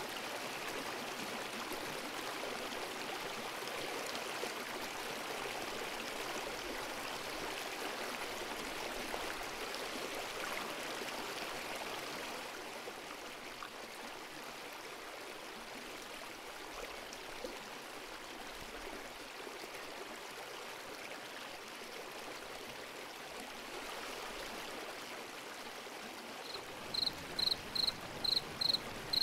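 Steady rush of running water, a little quieter after about twelve seconds. Near the end a cricket starts chirping, about two chirps a second.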